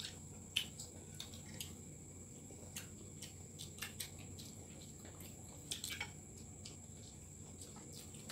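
Close-up eating sounds: wet chewing and lip-smacking, with fingers working rice, as irregular short smacks and clicks. A faint steady high whine runs underneath.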